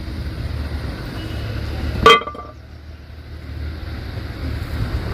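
Steady low rumble of road traffic, with one short vehicle horn toot about two seconds in.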